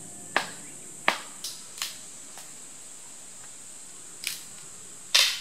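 Dry branches and twigs cracking and snapping as they are pulled from a firewood pile: about six sharp cracks, the loudest near the end. Under them, insects drone steadily at a high pitch.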